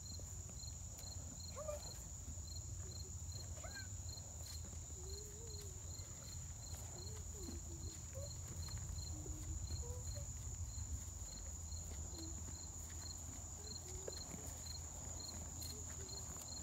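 Insects chirping: short chirps repeating about two or three times a second over a continuous high trill, with a steady low rumble underneath.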